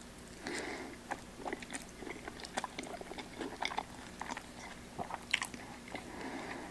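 A person chewing a mouthful of creamy pasta, with many short mouth clicks and smacks at irregular intervals.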